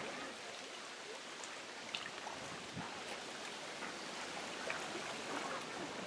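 Quiet lakeside woodland ambience: a soft, even hiss with faint scattered ticks and no clear single source.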